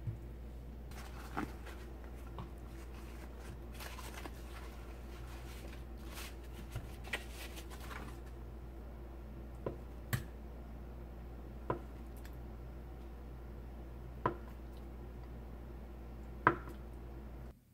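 Kitchen knife cutting through a block of tofu, the blade knocking on the plastic cutting board about five times, a second or more apart, the last knock loudest. The first several seconds hold soft rustling and handling sounds, all over a low steady hum.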